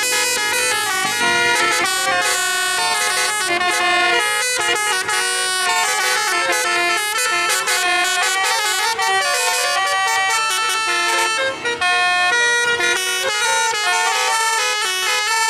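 Bus telolet horn: a set of musical air horns on a tour bus playing a quick melody, several notes sounding together and stepping to new pitches a few times a second without pause.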